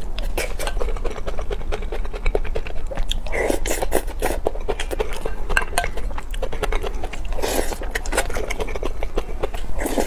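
Close-miked chewing and wet mouth sounds of someone eating spicy noodles, with a wooden spoon scraping and tapping a ceramic bowl. Louder, noisier stretches come about three and a half seconds in and again about seven and a half seconds in, over a steady low hum.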